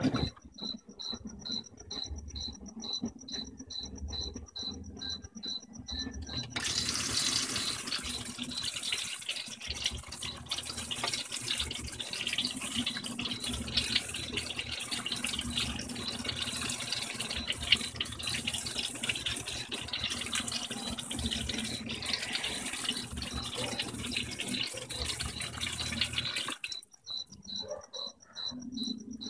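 Water spraying onto a load of sheets in a Whirlpool Vantage top-load washer as the basket turns, an even rushing over a low motor hum. The spray starts about six seconds in and stops shortly before the end; before and after it, only a faint high ticking about twice a second.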